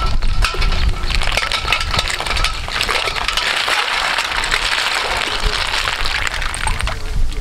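Water splashing and sloshing in a metal bowl while a basket of snails is dunked and stirred by hand, with many small clicks of the snail shells knocking together. A thin steady high tone runs through the first couple of seconds.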